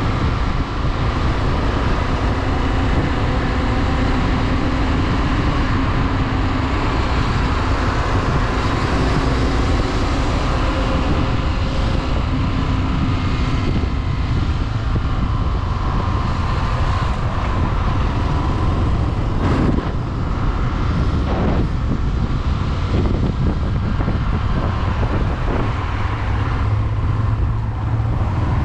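Small-displacement motorcycle being ridden at a steady pace, its engine running steadily under heavy wind noise on the microphone.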